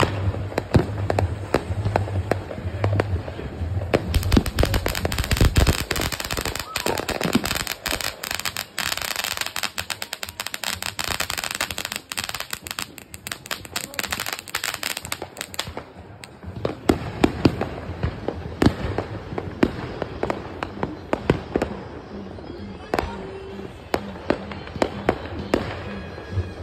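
Fireworks going off close by: a ground fountain firework hissing and crackling amid many sharp pops and bangs. There is a run of deep bangs about four seconds in, a long stretch of dense crackling in the middle, and scattered pops and bangs through the last third.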